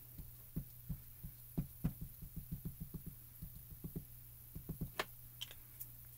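Soft, irregular low thumps of a hand pressing and working a clear acrylic stamp block down onto cardstock on a craft mat, several a second, with a sharper click near the end, over a steady low hum.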